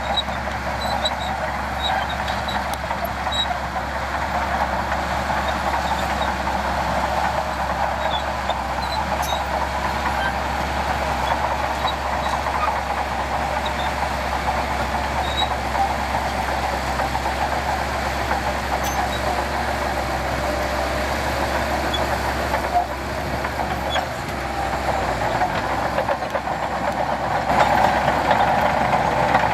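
Heavy diesel earthmoving machinery running steadily under load, growing louder near the end.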